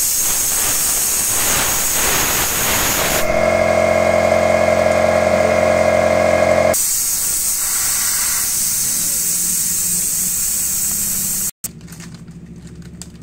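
Compressed air blasting out of an air blow gun fed by a Ryu RCP-75 electric air compressor, a loud steady hiss. For a few seconds in the middle a steady pitched hum from the compressor stands out. Near the end the blast cuts off abruptly, leaving a quieter hiss and hum.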